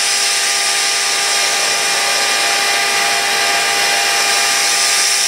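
Powered lift raising the heated top hood of a Vac-U-Clamp FT900 thermofoil vacuum press: a steady whirring hiss at an even level.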